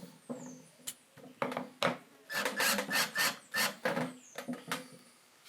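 A run of short scraping or rubbing strokes on wood, irregular at about three a second.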